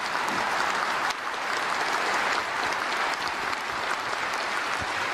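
Audience applauding steadily: a dense, even clapping.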